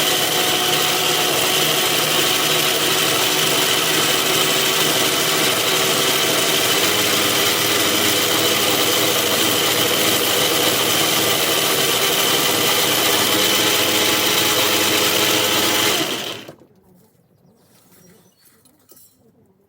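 1944 Logan 210 lathe, driven by a variable frequency drive, running and taking a cut on a chuck backing plate: a steady machine noise with a high, steady whine. It stops abruptly about sixteen seconds in, leaving near silence with a few faint clicks.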